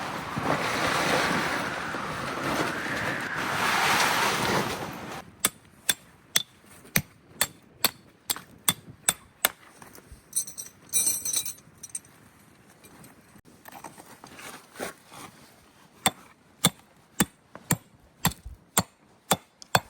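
Rushing wind noise for about five seconds, then it stops and a run of short, sharp clicks or crunches follows at about two a second.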